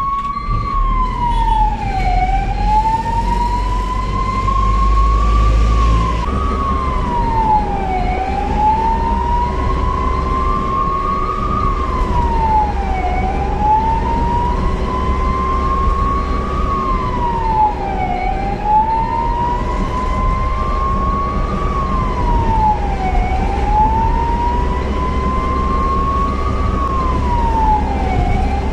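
Ambulance siren wailing: each cycle climbs slowly in pitch for about four seconds, then drops back quickly, repeating about every five seconds. A steady low rumble of vehicle engine and road noise runs underneath.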